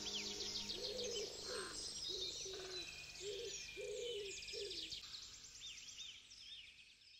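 Several birds calling: repeated high arching chirps and quick trills over a run of about six lower, arched notes in the middle, all fading out near the end.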